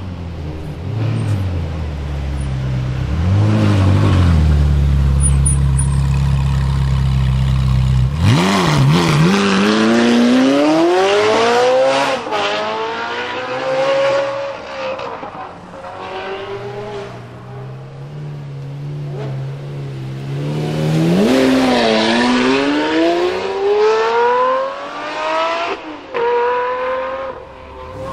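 A Ferrari 458's V8 running at low revs with a short rev blip. Then, in a road tunnel, supercar engines make two hard accelerations, each note rising through the gears with quick upshifts.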